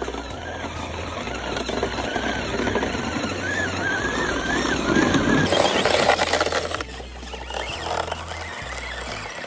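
Redcat Everest 10 RC crawler's electric motor whining and wavering with the throttle as the truck churns through shallow icy water, with splashing that swells to its loudest about five seconds in.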